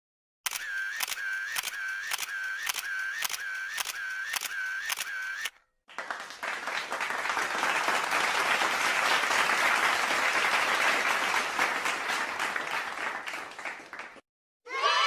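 Camera shutter sound effect clicking about twice a second for five seconds. Then, after a brief gap, applause swells and fades for about eight seconds.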